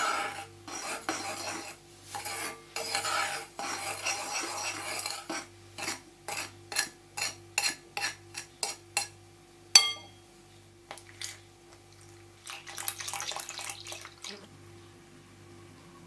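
Metal spoon stirring flour and sugar in a glass mixing bowl, scraping against the glass, then clinking on the bowl about three times a second, with one sharper ringing clink. A shorter stretch of scraping follows near the end.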